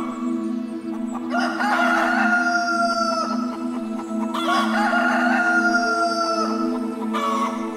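Rooster crowing twice, each crow a long call of about two seconds, over steady background music.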